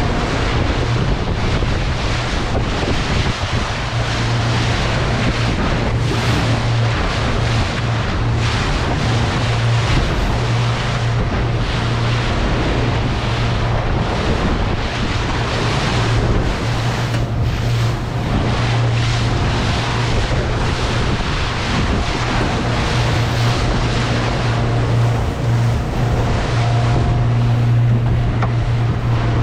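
Boat motor running steadily under way, a constant low hum, with wind buffeting the microphone and the rush and splash of water against the hull.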